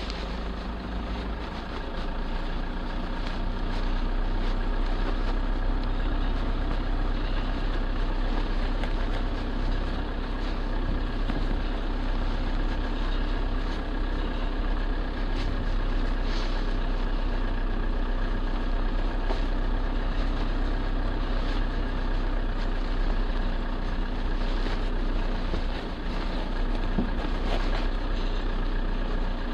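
Vehicle engine running steadily at low revs, a constant hum with no change in pace.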